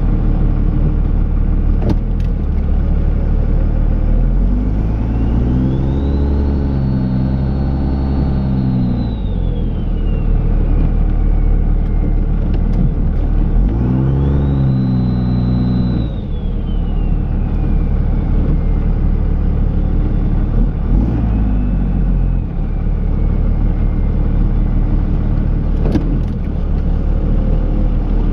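Dodge Ram's Cummins diesel engine running under plowing load, revving up and settling back down twice, with a high whine that rises and falls with the revs. A couple of sharp clicks, one about two seconds in and one near the end.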